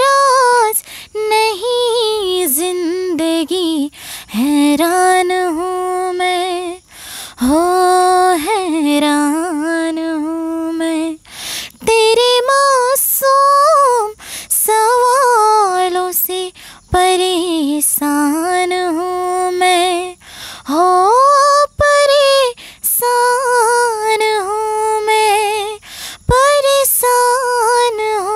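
A woman singing a slow, sentimental song unaccompanied, in phrases of a few seconds with long held notes and vibrato.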